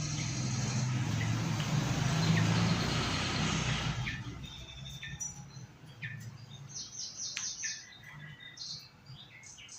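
A rushing noise for about four seconds, then a run of short, high chirps from a yellow-vented bulbul.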